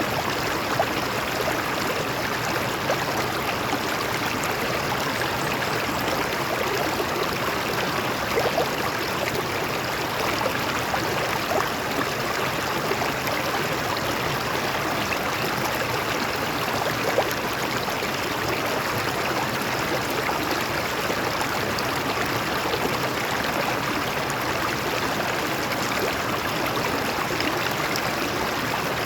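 Stream water flowing and splashing over rocks, a steady rushing babble with small gurgles and splashes.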